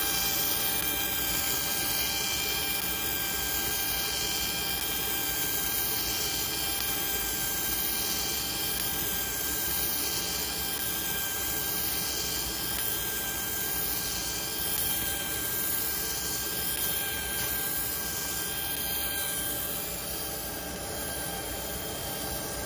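A CNC cutting machine cutting the outer contour of a part: a steady hiss with a steady whine over it. The hiss sweeps in a slow repeating wave as the cutting head travels.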